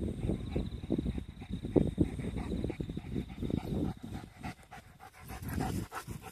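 German Shepherd dog panting hard with its mouth open, worked up from herding cattle.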